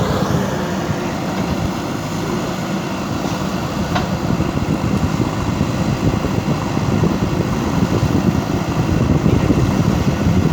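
JCB 3DX backhoe loader's diesel engine running steadily as the machine works, getting a little louder in the second half.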